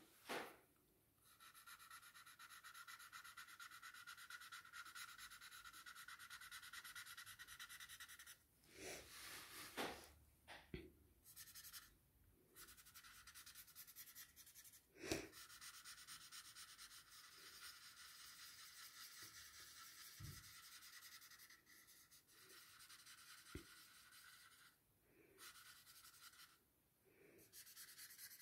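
Faint, scratchy rubbing of a paper blending stump over graphite on drawing paper, in long strokes broken by short pauses as pencil shading is smudged. One light tap about halfway through.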